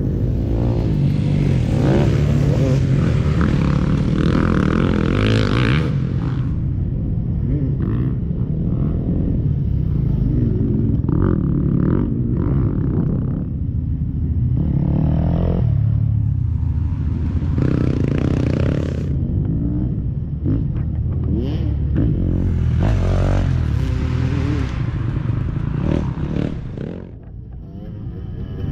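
Dirt bike engines racing past one after another, revving hard, their pitch rising and falling as each bike comes by.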